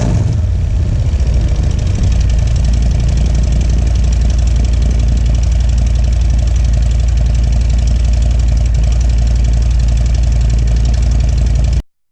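Harley-Davidson Road King's V-twin engine idling steadily through its exhaust, with a heavy low note. It cuts off abruptly near the end.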